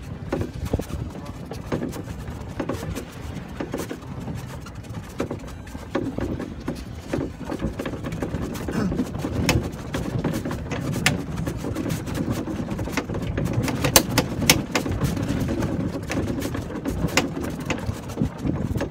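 Golf cart driving over a rough sand and rock track: a steady low rumble of the ride with frequent clicks and rattles as the cart jolts, busiest through the middle.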